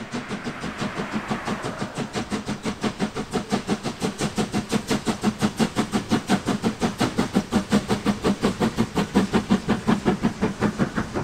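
Steam locomotive chuffing, its exhaust beating in a quick, even rhythm of about four to five beats a second.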